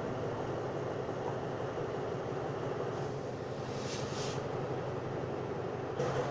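Diesel-electric locomotive of the SRT Alsthom AHK class, standing and idling with a steady hum. A short hiss of air comes about three seconds in, and the engine note steps up slightly near the end.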